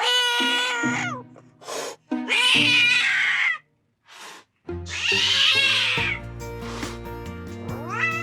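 Sphynx cat yowling aggressively: a long pitched yowl, then two harsher, rougher cries with short hisses between them. Music comes in about six seconds in.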